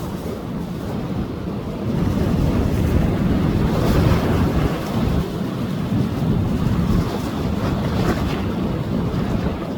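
Sea waves breaking and washing onto a beach, swelling louder about two seconds in, with wind rumbling on the microphone.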